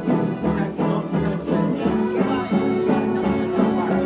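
Music with an acoustic guitar strummed in a steady rhythm.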